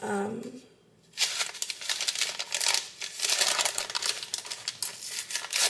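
Packaging being crinkled and rustled by hand in an irregular run of crackles, with some tearing, starting about a second in.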